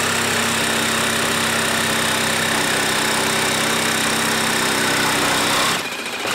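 Older brushed Ryobi cordless jigsaw on orbital setting 1, sawing steadily across a wooden board with a loud, even buzz. About six seconds in, the sound drops and changes as the blade finishes the cut.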